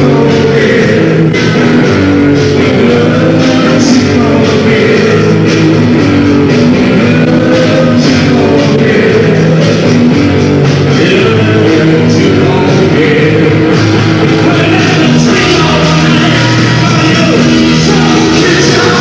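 Rock band playing live: electric guitars, bass and drums, loud and steady, with a voice singing.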